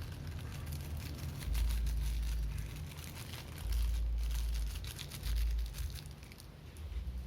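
Crinkling and rustling of plastic packaging being handled, a dense run of fine crackles, with a few brief low rumbles from handling or wind on the microphone.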